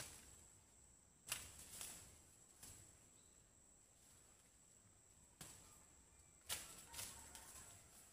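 Near silence: a handful of brief, faint rustling swishes, about six, over a faint steady high-pitched hiss.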